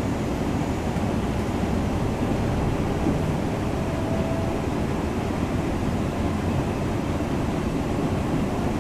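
Steady running noise inside the saloon of a Siemens Desiro Class 350 electric multiple unit on the move: an even low rumble with a hiss over it.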